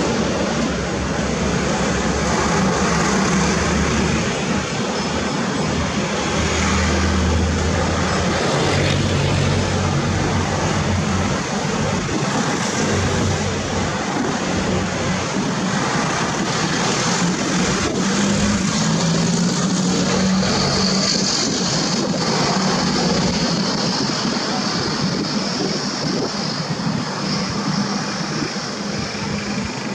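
Steady motor-vehicle engine noise, a low rumble that rises and falls in strength.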